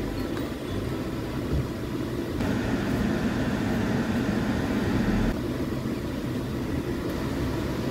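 Car cabin noise while the car is manoeuvred at low speed: a steady low engine and road noise, with a band of hiss that rises in from about two seconds in and drops away past five seconds.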